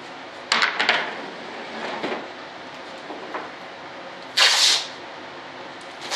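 Clatter and knocks of a masking-taped mold frame being handled and laid on a workbench, with a loud half-second rasp about four and a half seconds in and two shorter ones at the end.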